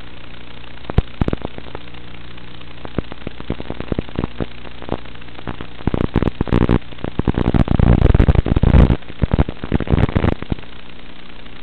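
Electrical hum and crackling static from an analog FPV video receiver's audio channel, with scattered clicks that thicken into dense crackling about halfway through, the sign of the radio link breaking up.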